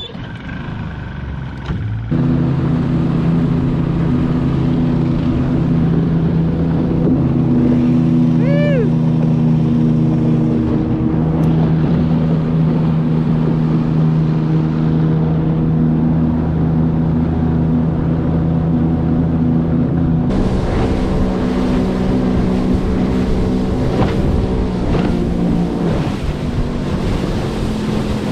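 Outboard motor on a small flats skiff running under way: it comes up in speed about two seconds in, then holds a steady drone. About twenty seconds in, wind and water-spray noise join the engine.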